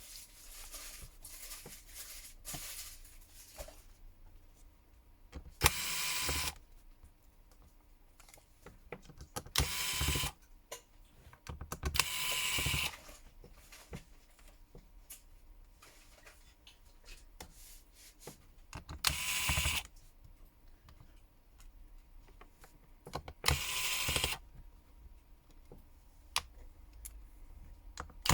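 Small electric precision screwdriver running in short whirring bursts of under a second each, about six times, backing out small screws, with light clicks of tools on the phone between the bursts.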